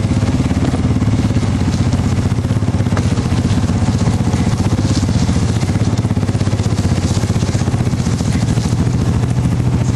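Side-by-side UTV engine running steadily under way, a loud, even low drone.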